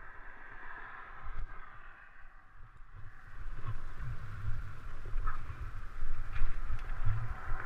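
Wind buffeting the microphone during a mountain bike ride, with a steady rolling noise from the tyres on a dirt trail that grows louder about halfway through.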